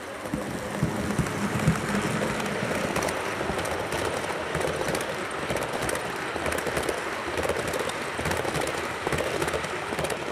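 HO scale model passenger train, a diesel locomotive hauling passenger cars, running past close by: a steady whir of the motor and wheels on the rails, with many fine clicks. It gets louder about half a second in as the locomotive comes up.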